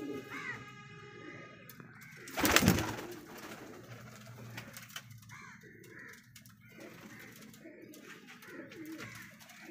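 Domestic pigeons cooing in a small loft, low coos repeating throughout. A brief loud burst of noise about two and a half seconds in.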